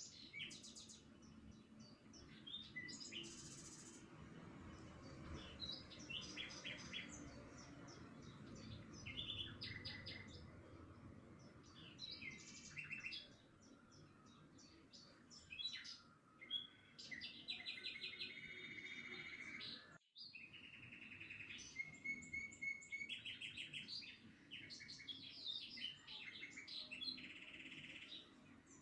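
Several birds chirping and singing in short calls and quick repeated trills, over a faint low background hiss; the sound drops out for a moment about twenty seconds in.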